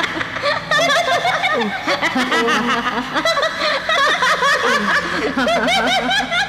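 Several women laughing together in mockery, overlapping voices running through the whole stretch.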